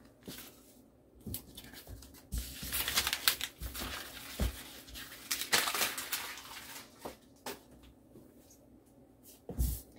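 Paper and packaging rustling and crinkling as they are handled, with scattered light knocks; the rustling is densest from about two and a half to six and a half seconds in.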